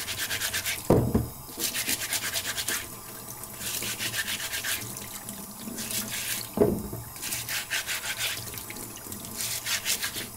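Vegetable brush scrubbing carrots under a running tap in a stainless-steel sink: rapid bristle strokes in spells over the sound of running water. Two dull knocks, about a second in and again about six and a half seconds in.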